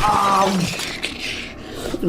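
A sudden crash with a brief pitched cry in its first second, fading into a noisy shattering tail: a battle sound effect.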